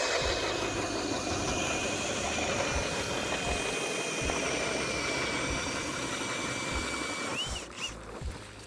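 Power ice auger drilling a hole through lake ice: a steady motor whine over the grinding of the bit, which winds down and stops about seven and a half seconds in.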